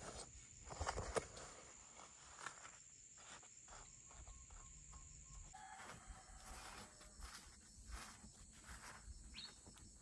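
Faint outdoor countryside ambience: a steady, high-pitched insect drone, with scattered soft knocks and rustles.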